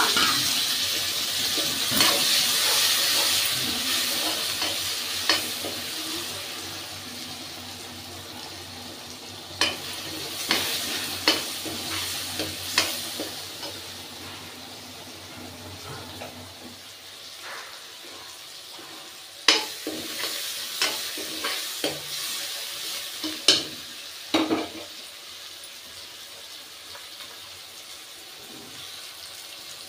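Chopped tomatoes sizzling in hot oil in a metal kadhai as an onion-tomato masala fries. The sizzle is loudest at first and dies down over several seconds. A steel spoon then stirs and scrapes the pan, with sharp clinks against the metal in two spells.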